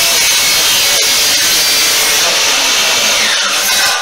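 DeWalt miter saw (chop saw) running loud and steady as its blade cuts through a piece of firewood, the motor's pitch dropping near the end.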